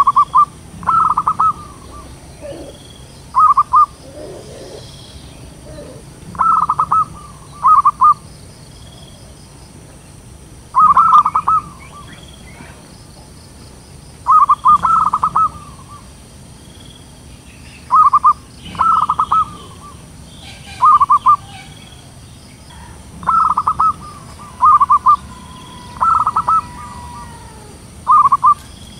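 Zebra dove cooing: loud, short phrases of rapid stuttering notes, repeated every second or two.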